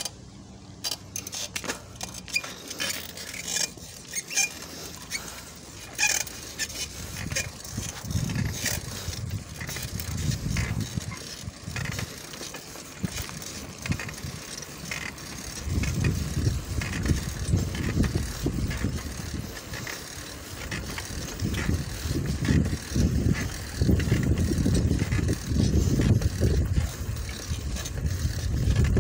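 A bicycle being ridden along a concrete lane, with wind buffeting the microphone as a low rumble that gets heavier from about halfway through. Light clicks and rattles from the bike run throughout.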